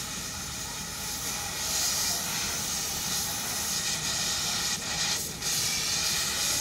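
Steady hiss of compressed air, as from the rubber ship-launching airbags or their air hose, briefly dipping twice about five seconds in.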